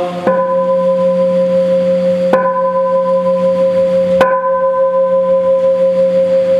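A bell struck three times, about two seconds apart, each stroke ringing on in long, steady overlapping tones. It is rung at the elevation of the host during the consecration at Mass.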